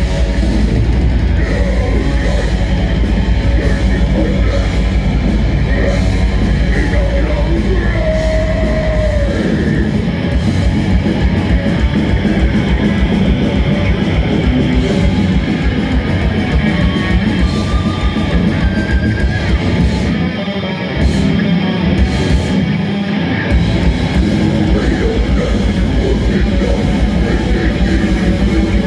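A death metal band playing live and loud: distorted electric guitars and a drum kit, with growled vocals. There are brief stop-start breaks about twenty seconds in.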